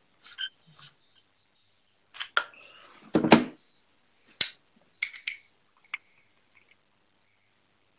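A series of sharp clicks and knocks as small tools and parts are handled close to the phone's microphone during a coil build. There is a heavier thud about three seconds in.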